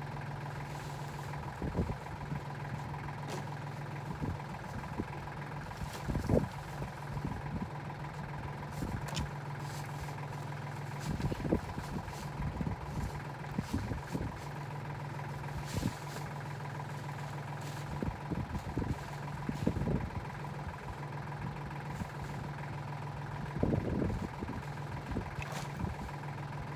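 Compact farm tractor engine idling steadily, with irregular knocks and thumps as cut logs are handled and dropped nearby.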